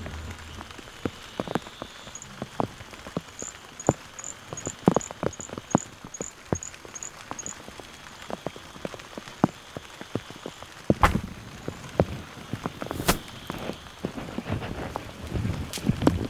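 Rain falling on palmetto leaves and the camera, with scattered drops ticking irregularly. A quick run of about a dozen high chirps, roughly three a second, sounds about a third of the way in, and two sharp loud knocks come about two seconds apart near the end.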